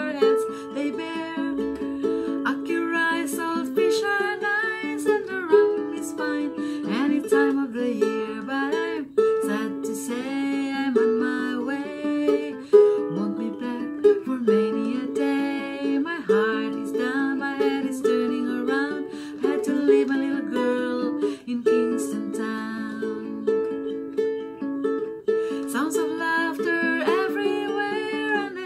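A woman singing while strumming a ukulele, the chords repeating in a steady rhythm under her voice.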